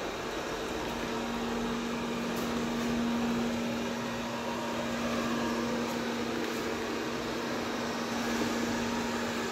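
Robot vacuum cleaner running: a steady motor and fan hum with a constant low tone that gets stronger about a second in.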